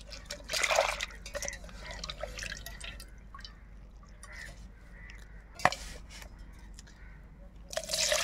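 Water splashing and dripping in a stainless steel pot as crabs are rinsed by hand: a splash about half a second in, scattered drips, a single sharp tap a little past the middle, then water poured into the pot near the end.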